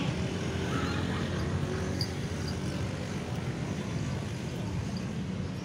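Steady low rumble of street traffic, with a few faint light clicks about two seconds in.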